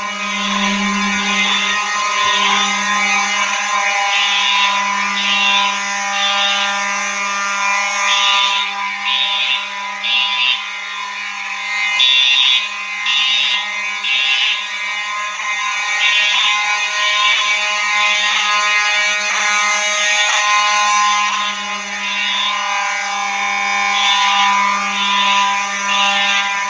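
Three Simplex fire alarm horn strobes sounding together: the 4903-9217 electromechanical horn gives a steady low buzz that skips now and then under its sync module, while horns over it pulse in groups of three, the temporal code-3 evacuation pattern. Loud.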